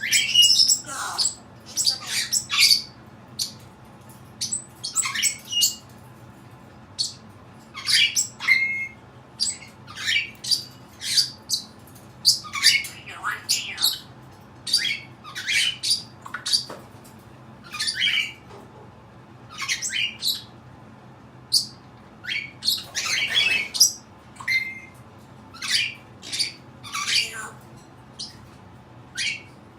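Cape parrot squawking and making odd sounds: many short, sharp, high calls in irregular bursts, some with quick pitch slides.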